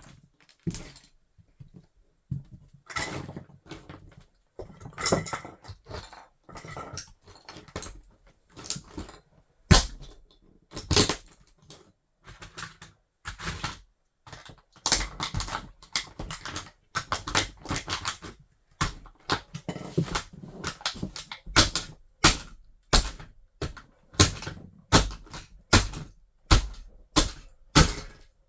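Toy car being crushed underfoot by a wedge sandal: repeated crunching and cracking of the toy's body. In the second half the stomps fall into a steady beat of about one to two a second.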